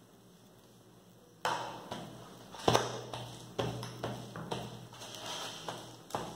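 Paint roller being worked back and forth in a plastic paint tray to load it with paint: a rolling noise broken by several sharp knocks and clicks, starting about a second and a half in, the loudest knock nearly three seconds in.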